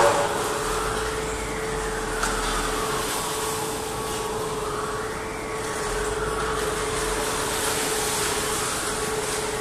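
Steady industrial machinery hum in a steel rod mill, with a constant drone and a low rumble that comes and goes. Twice, a tone slowly rises and falls in pitch. A sharp knock sounds right at the start.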